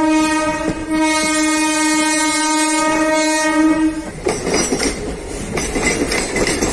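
Southern Railway suburban electric multiple-unit train sounding one long steady horn blast, which cuts off about four seconds in. After it comes the clatter of the wheels over the rail joints as the train runs by.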